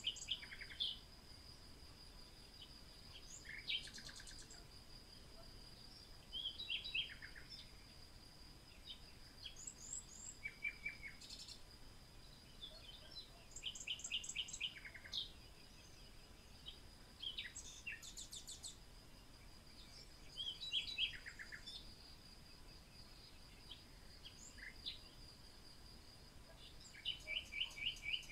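Birds chirping and singing in short, high phrases every second or two, several calls overlapping, over a steady thin high tone and faint hiss.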